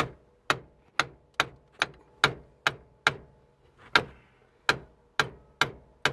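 Hammer blows on a hand impact driver seated in a stripped axle bolt on a 1968 Volkswagen van: sharp metal-on-metal strikes about two a second, each ringing briefly, with one short pause about halfway through.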